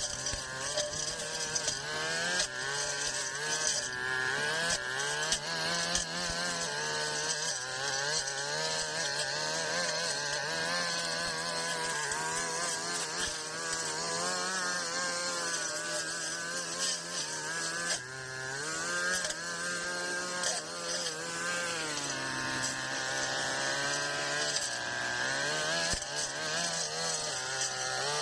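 Brush cutter engine running under load while mowing tall grass, its pitch rising and falling as the throttle and the cutting load change, with a longer dip in speed about three quarters of the way through.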